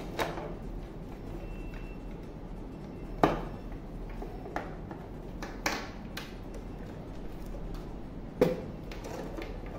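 Plastic CCTV camera bodies and cable plugs being handled and set down on a wooden desk: about five sharp knocks and clicks a second or more apart, the loudest about three seconds in and again near the end, over a faint steady hum.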